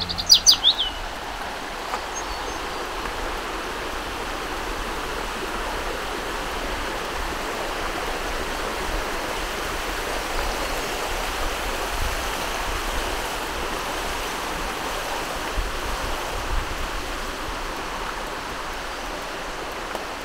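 Steady rushing of flowing creek water, with a few short bird chirps in the first second.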